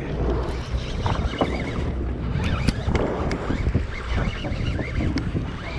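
Wind buffeting the microphone over the steady low rumble of a sportfishing boat at sea, with scattered short knocks and clicks.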